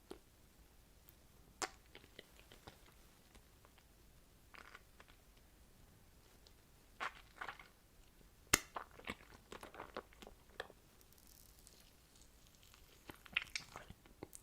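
Close-miked eating: a person biting into and chewing gummy jelly sweets and dried fruit, with scattered sharp crunches and small wet chewing clicks. The bites come more often from about halfway through, with the sharpest one a little past the middle.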